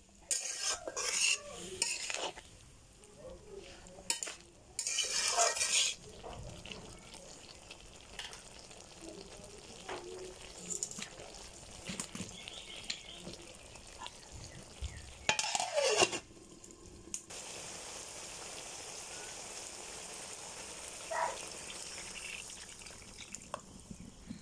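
A spatula scrapes and stirs vegetables in a metal wok, with sizzling, in loud bursts over the first few seconds. After that comes a steady sizzle, with a short loud burst about two-thirds of the way through.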